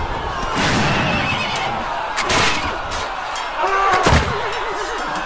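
Battle sound effect: a noisy din of a charge with a few heavy impacts, and a horse whinnying about four seconds in.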